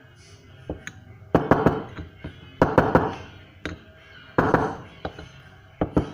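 Quick taps driving a large rubber seal into a Vespa GT200 front wheel hub, worked evenly around its edge with an undersized driver. They come in short bursts of several sharp, slightly ringing knocks about every second and a half.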